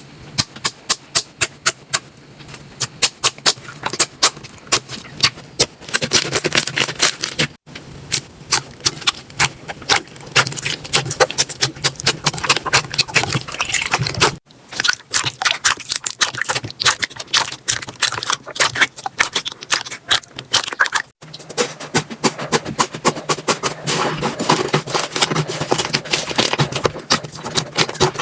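Slime being squeezed, poked and stretched by hand, with rapid sharp clicks and pops of air pockets over wet squishing. It comes in four short segments, each cut off abruptly.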